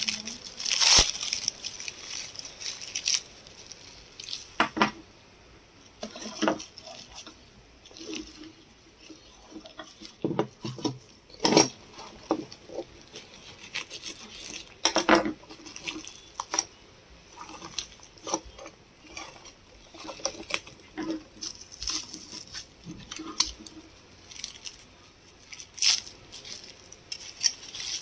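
Packaging being handled and opened: irregular rustling and crinkling with scattered small clicks and taps.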